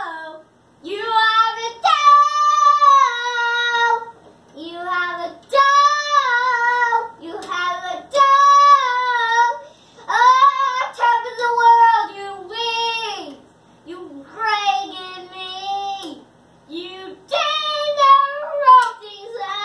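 A young child singing in a high voice, a string of short held phrases with brief pauses between them.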